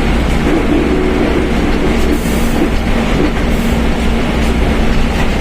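Mercedes-Benz OF1721 BlueTec 5 bus under way: dense engine and road noise with a steady droning tone from the rear differential, which drones loudly.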